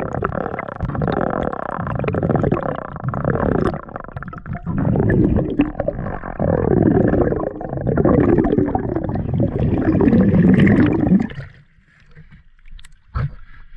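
Muffled gurgling and churning of river water heard through a camera held underwater. It cuts off abruptly about eleven seconds in as the camera comes out of the water, leaving a few light splashes.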